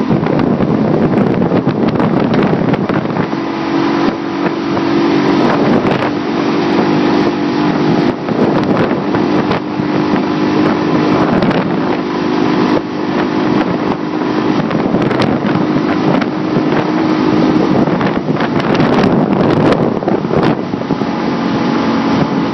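Motorboat engine running steadily at towing speed, with a steady hum under the rush of the wake water and wind buffeting the microphone.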